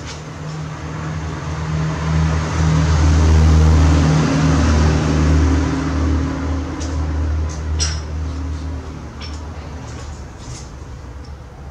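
A motor vehicle's engine running with a low hum, growing louder over the first few seconds and then slowly fading, with a few sharp clicks in the second half.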